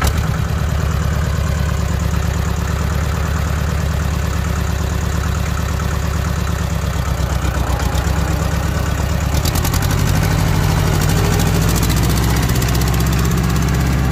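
Small 20-horsepower Allis-Chalmers tractor's engine running loud and steady as the tractor moves under a load of feed sacks. About nine and a half seconds in, the engine note rises a little.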